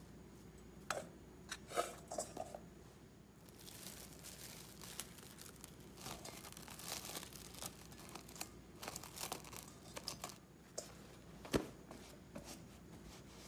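Plastic wrap crinkling and tearing as it is pulled out and stretched over a stainless steel mixing bowl. A few light knocks come first, as the dough goes into the bowl, and there is one sharp knock near the end.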